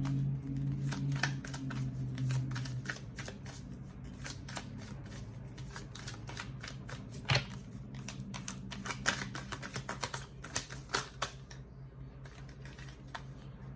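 A deck of oracle cards being shuffled by hand: a dense run of quick card clicks, with a few sharper snaps about halfway through.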